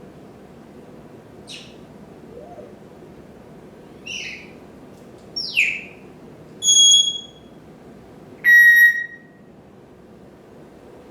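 African grey parrot giving a few short chirps and a falling whistle, then two loud, steady beeps about two seconds apart, the second lower in pitch, mimicking an electronic beeper.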